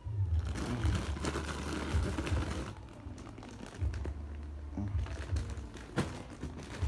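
Clear plastic bags of dried wild seeded bananas crinkling as a hand shifts and lifts them, densest in the first couple of seconds, then a few sharp crackles, over a low rumble.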